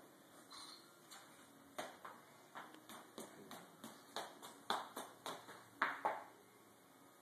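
A toddler's footsteps on a laminate wood floor: a run of light, quick taps about two a second, getting louder toward the end and stopping about six seconds in.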